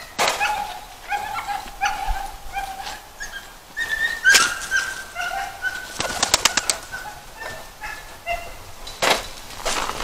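A bird dog puppy whining in short, high-pitched whimpers, repeated throughout. About six seconds in comes a quick fluttering rattle.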